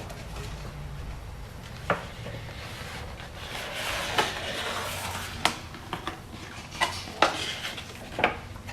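Light clinks and knocks of kitchen ware, about eight scattered through, with a soft scraping stretch around the middle, as a cake ring is worked off a set cake. A low steady hum runs underneath.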